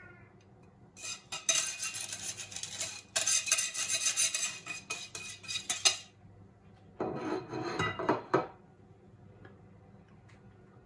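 Wire whisk scraping and clinking against the inside of a bowl to knock flour out of it: a dense scraping rattle for about five seconds, then a shorter burst about a second later.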